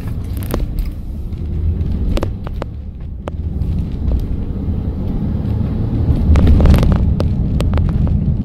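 Road noise inside a moving car: a steady low rumble of engine and tyres that grows a little louder past the middle, with a few scattered light clicks.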